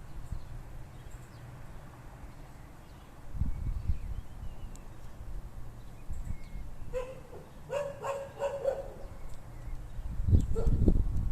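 A dog barking, four or five short barks in quick succession about two-thirds of the way in, over intermittent low rumbling.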